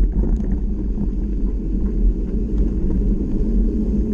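Steady low rumble of a mountain bike riding along a dirt trail: wind buffeting the camera microphone and knobby tyres rolling over the ground, with a few faint ticks of gravel.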